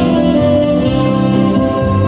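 Instrumental music: a backing track with guitar and strings under long, held melody notes.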